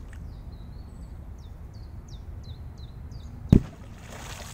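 A piratka-type firecracker exploding underwater in a bog: one sharp, powerful boom about three and a half seconds in, followed by the thrown-up water splashing back down. Before the blast a small bird calls in a run of short falling notes.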